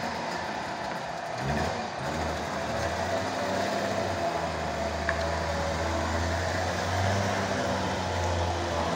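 Wartburg Tourist's three-cylinder two-stroke engine running steadily at low revs as the car creeps forward, with a small click about five seconds in.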